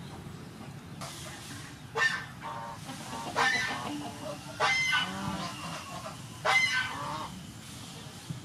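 Domestic fowl calling four times in the background, each call a short, pitched run of notes, spaced about a second and a half apart.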